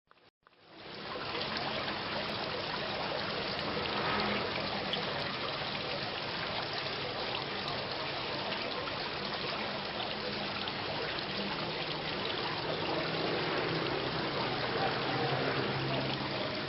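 Steady rain falling, with a trickling, dripping texture. It cuts out for a moment at the start, then fades back in over about a second and stays even.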